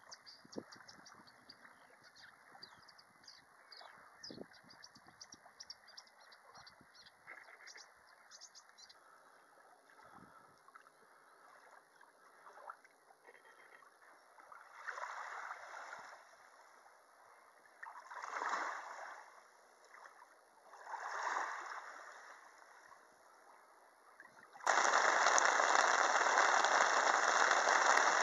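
Faint water lapping with light high ticking, then three swelling whooshes a few seconds apart. About three-quarters of the way in, a loud steady rush of wind and rain cuts in abruptly.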